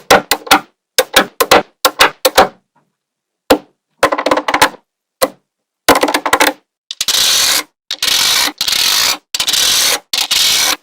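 Small neodymium magnetic balls clicking as they snap together, in quick runs of sharp clicks with short pauses. In the last few seconds come four stretches, each under a second, of dense rattling as many balls clatter together.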